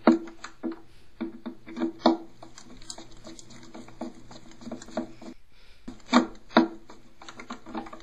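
Nut driver end of a six-way screwdriver working the flush actuator nut on a pressure-assist toilet tank: irregular sharp clicks and knocks of metal on the fitting, with a loud knock at the start, another about two seconds in, and two more close together past the six-second mark.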